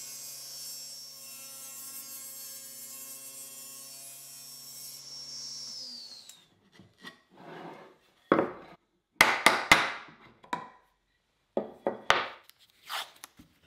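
SawStop table saw running with its blade spinning as a white oak piece is pushed through for a trim cut; the motor is switched off and winds down, falling in pitch, about six seconds in. Then a claw hammer knocks on the oak bench parts, a string of sharp taps near the end.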